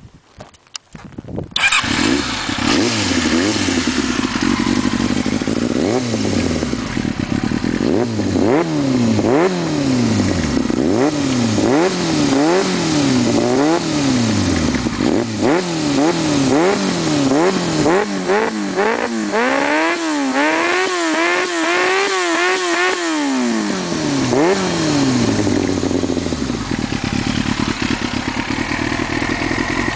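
Yamaha YZF-R6 inline-four sport bike with a loud aftermarket exhaust. It starts up about two seconds in, then is blipped over and over, with sharp revs that rise and fall about once a second and a quick burst of blips near the middle, before settling back to a steady idle near the end.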